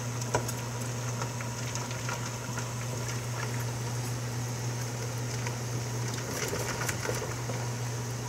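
Large pot of salted water boiling steadily with a cabbage head in it, over a steady low hum. A few light clicks come from a knife and fork working against the cabbage and the pot.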